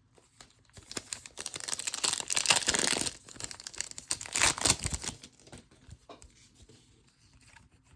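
A trading-card pack wrapper being torn open and crinkled, from about a second in until about five seconds in, then only faint handling.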